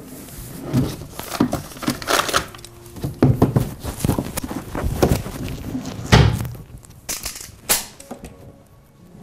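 A dresser drawer being rummaged through: a run of knocks, thuds, rattles and rustling from things being moved around in the drawer, loudest about six seconds in, ending with a sharp click near the end.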